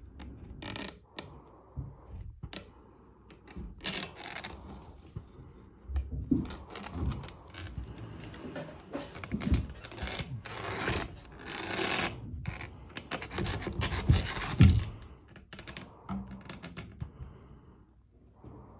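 Irregular rubbing and scraping handling noise, with a few low knocks, as a video inspection scope's flexible camera cable is worked in a small hole in a ceiling.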